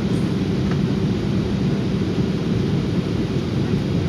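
Jet airliner cabin noise: the turbofan engines and airflow heard from a window seat over the wing, a steady low-pitched drone with no change.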